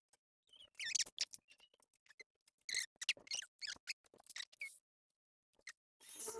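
Allen wrench turning a small set screw in a dummy door knob: a run of faint irregular metal clicks and scrapes with short squeaks, then a few longer rasping scrapes near the end.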